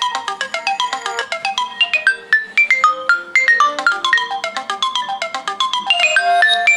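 Several smartphones ringing at once: overlapping ringtone and alarm melodies of short marimba-like notes, playing over one another without a break.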